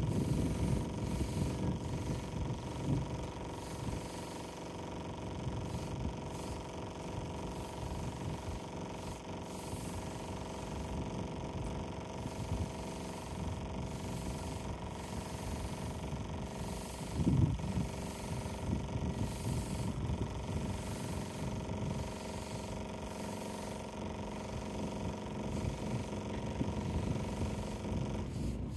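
Electric pressure washer's pump motor running steadily with a constant hum, while its lance sprays water against a rendered wall. An uneven low rumble runs underneath, louder for a moment about two-thirds of the way through.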